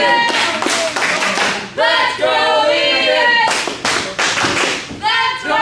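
Singing voices with sharp hand claps.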